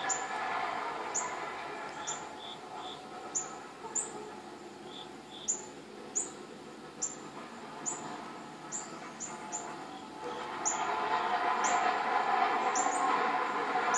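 An unexplained droning, metallic-sounding hum made of many tones, presented as a "strange sound" in the sky. It fades through the middle and swells again about ten seconds in. Short high chirps, each falling in pitch, repeat roughly once a second over the hum.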